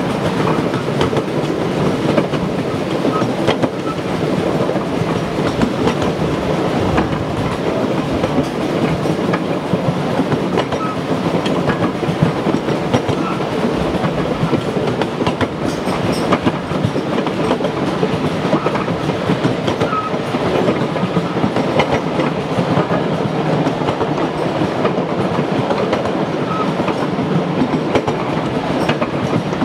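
Miniature railway train running along the track: a steady rumble of wheels with dense clicking and rattling over the rail joints, and a few brief faint squeaks.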